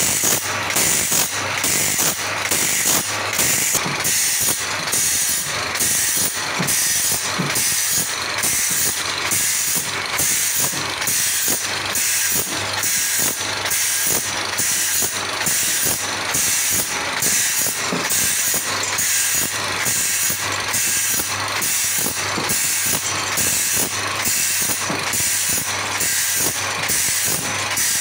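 Automatic band saw sharpening machine grinding a wide sawmill band saw blade tooth by tooth. The grinding wheel bites into steel in a steady, even rhythm, one stroke per tooth as the blade is indexed forward, over the steady hum of the machine's motor.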